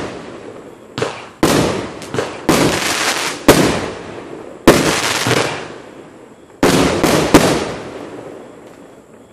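Consumer firework barrage cake (a 37-shot 'Block Buster') firing its final shots: about nine sharp bursts at uneven spacing, each trailed by a crackling decay, fading out over the last couple of seconds.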